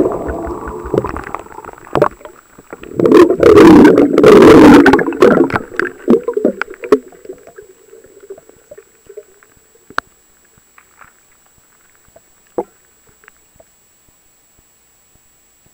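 A small camera plunging into lake water: muffled rushing and gurgling of water against its microphone. A loud surge starts about three seconds in, then dies away within a few seconds, leaving only a few faint ticks.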